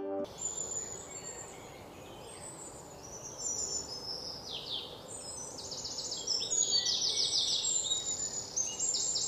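Outdoor nature ambience: birds chirping and singing over a faint steady hiss, the calls coming as quick runs of short, high notes that grow busier from about three seconds in.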